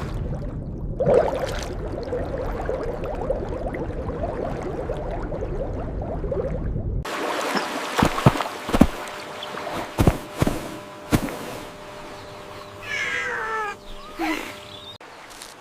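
A cat meowing, with a couple of falling-pitch meows near the end. Before them come a steady low noise for about the first half and then a run of sharp knocks.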